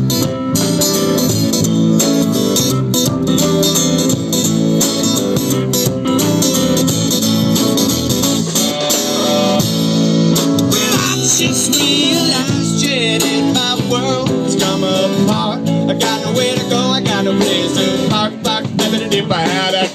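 Live band music led by guitars, playing steadily and loudly, with a wavering melody line coming in about halfway through.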